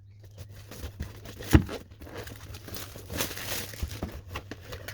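A product's packaging being opened and handled: irregular crinkling and rustling with small knocks, and a louder knock about a second and a half in.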